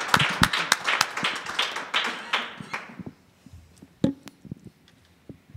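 Applause from an audience and panel, dying away about three seconds in. A little later comes a sharp knock and a few light taps from a handheld microphone being passed between panellists.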